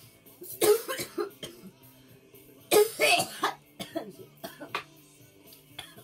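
A woman coughing hard after a bong hit. There are two loud coughing fits, about a second in and near three seconds in, then a few lighter coughs, over background music.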